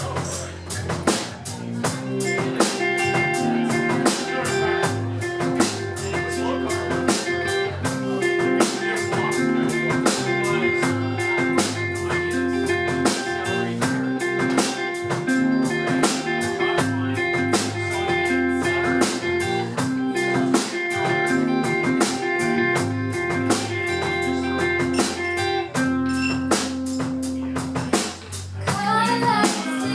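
Band music with guitar and drum kit playing a steady blues-rock groove, without singing.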